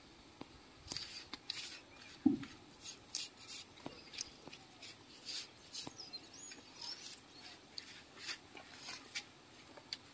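Soft, irregular rustling and scratching of fingers mixing spice powders into a marinade on a banana leaf, with a soft thump about two seconds in.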